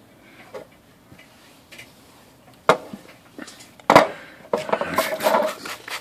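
Two sharp knocks, then water spraying in quick hissing bursts over a painted metal typewriter lid for the last second and a half, rinsing off the cleaner.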